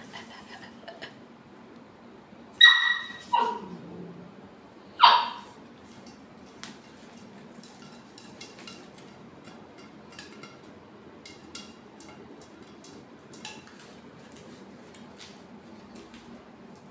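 Shetland sheepdog puppy giving three short, high-pitched barks, about two and a half, three and a half and five seconds in. The second bark falls in pitch. Faint light ticks follow.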